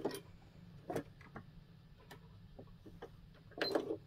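Quiet handling sounds at a home sewing machine that is not stitching: a few light clicks and ticks as fabric is lined up under the presser foot, with a brief louder mechanical sound near the end, before stitching restarts.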